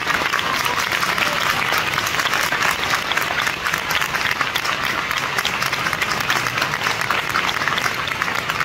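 A large crowd applauding steadily, a dense unbroken patter of clapping.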